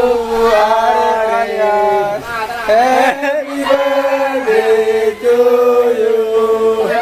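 A group of voices singing together in unison, continuing a birthday song. The notes are long and held, and the pitch steps between them.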